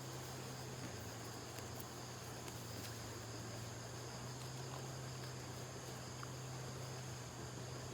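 Steady, faint chirring of insects with a constant low hum underneath.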